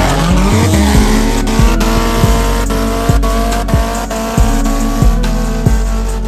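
Background music with a heavy, steady bass beat. Over it, near the start, a car engine revs up with a rising pitch.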